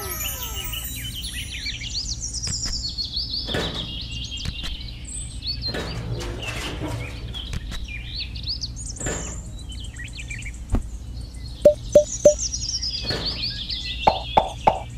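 Birds chirping continuously over a steady low background hum, with occasional wooden knocks as small wooden boards and beams are handled and set down, including three sharp taps in quick succession about three quarters of the way through.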